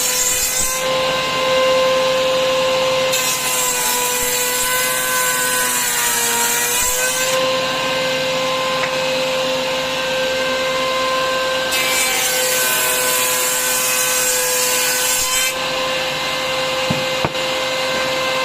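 Table router running with a steady high whine, its bit cutting wood in three stretches of a few seconds each: one ending about a second in, one from about three to seven seconds, and one from about twelve to fifteen seconds.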